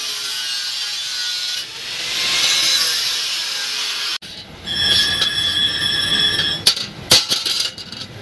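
Angle grinder with a cut-off disc grinding steadily through a steel circular saw blade. The grinding stops abruptly about four seconds in and is followed by a few sharp metallic clicks as the steel disc is handled on a block.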